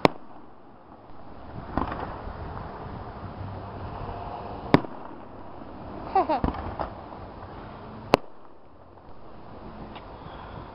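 Aerial fireworks shells bursting with sharp bangs: a loud one at the start, another about four and a half seconds in and another about eight seconds in. Smaller pops come near two seconds in, and a quick cluster of cracks about six seconds in.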